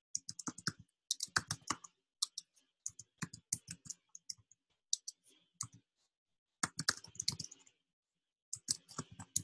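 Keystrokes on a computer keyboard: typing in quick runs of several keys with short pauses between them, and a slightly longer pause shortly before the end.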